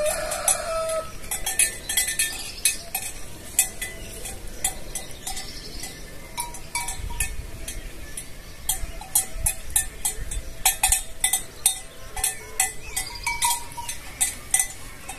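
Bells hung on sheep clanking irregularly as the flock moves about.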